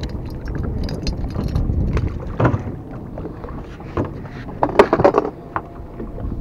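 Wind buffeting the microphone over water slapping against a boat hull, with sharp knocks and clicks from handling tackle about two and a half seconds in and again around five seconds in.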